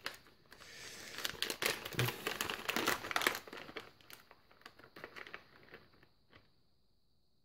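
Plastic soft-bait packet crinkling as hands open it and rummage inside. It is loudest in the first few seconds, thins out, and stops about six seconds in.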